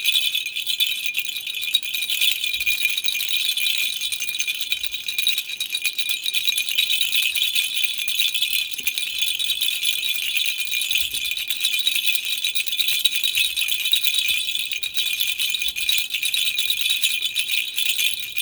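Baby rattle shaken continuously without a pause, a steady, high, bright rattling of many small beads or pellets.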